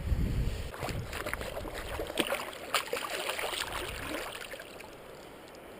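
River water trickling and splashing, with a few sharp knocks, dying down to a faint steady hiss after about four seconds.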